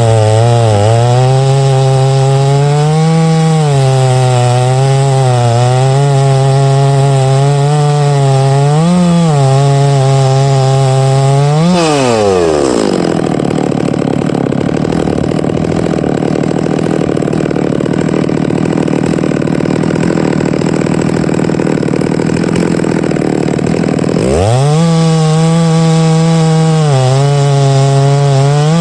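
Big-bore two-stroke chainsaw on a chainsaw mill, running at high revs in a rip cut through oak, its engine speed wavering under the load. About twelve seconds in, the revs fall sharply to a low idle that lasts about twelve seconds, then the saw is throttled back up into the cut.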